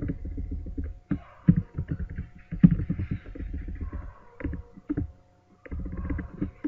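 Computer keyboard keys tapping irregularly and mouse clicks while text is being typed and corrected, over a low rumble and a faint steady hum.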